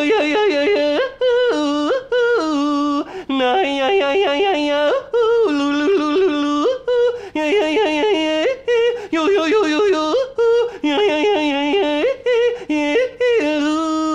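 A man yodeling with a hand cupped to his mouth, his voice flipping again and again between a low chest note and a high falsetto note in phrases with short breaks between them.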